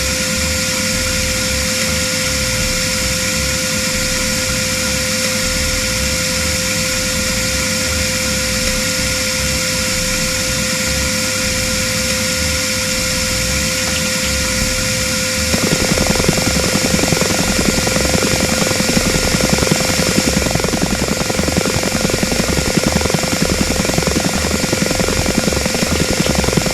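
Synthesized helicopter hovering sound effect: a steady high whine with a low, fluttering rotor beat underneath. About halfway through, a thicker, noisier layer comes in and the sound gets louder.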